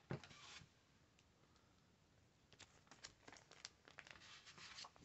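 A comic book being handled: a soft knock just after the start, then faint paper rustling and crinkling in quick short ticks for the last couple of seconds.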